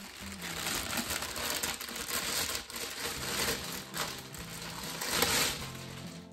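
Clear plastic wrapping crinkling and rustling as it is handled and pulled off a small telescope, loudest about five seconds in, over quiet background music.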